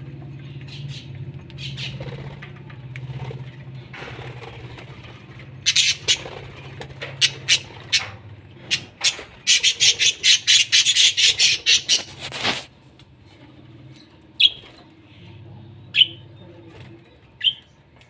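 Small parrots, budgerigars and a lovebird, calling in an aviary: a fast run of loud, shrill chirps starting about six seconds in and lasting about seven seconds, then three single sharp chirps about a second and a half apart near the end. A low steady hum lies underneath in the first few seconds.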